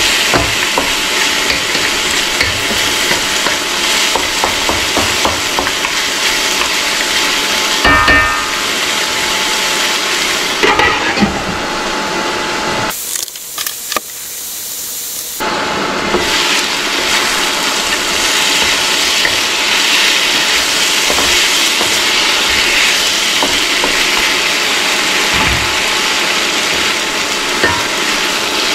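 Seasoned goat meat sizzling in a hot wok, stirred and scraped with a wooden spatula, with scattered knocks of the spatula against the pan. About halfway through, the sizzle drops away for a couple of seconds, then the stirring and sizzling resume.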